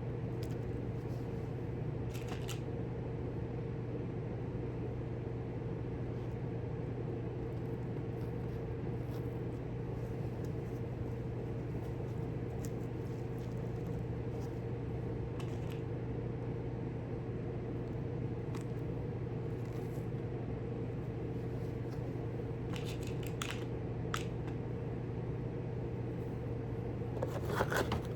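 Steady low hum with two held tones, with scattered faint clicks and taps of small hardware pieces being handled; a short run of louder clicks near the end.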